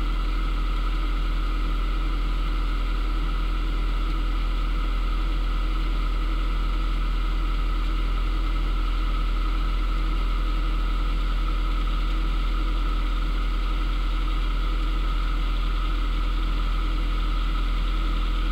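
Narrowboat's engine running steadily at low, even revs, heard from the boat's roof.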